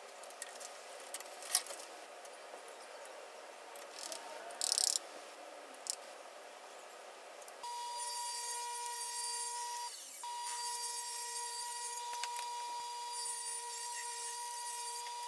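Strips of white oak knocked and shuffled on a table saw, then about halfway through the table saw switches on and runs with a steady whine while a strip is pushed along the fence through the blade.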